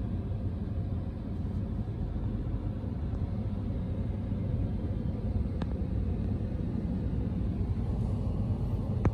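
Steady low rumble of road vehicles, with a city transit bus driving past, heard from inside a car.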